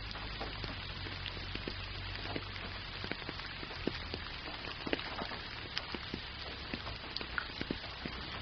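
Steady rain falling, an even hiss with many individual drops clicking distinctly throughout.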